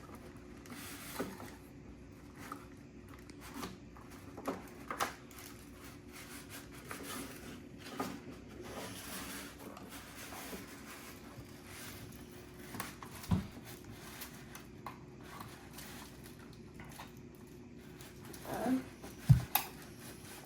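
Light, scattered clicks and rustles of plastic kit parts and small hardware being handled and fitted together, with a sharper knock near the end.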